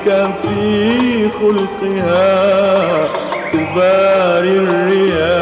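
Arabic religious nasheed: a man's voice singing a wavering, ornamented melody over low sustained accompanying notes.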